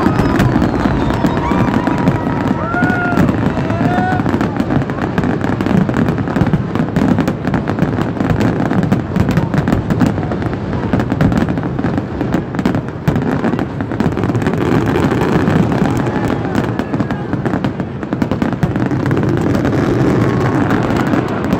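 Fireworks finale barrage: a dense, continuous run of bursts and crackle with no pause, and a few short whistles in the first few seconds.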